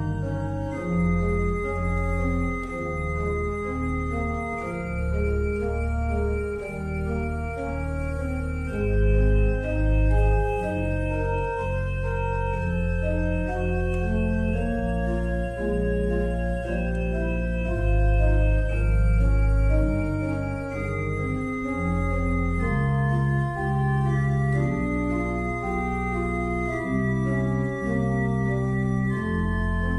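Organ music: slow, sustained chords that change every second or two over deep bass notes.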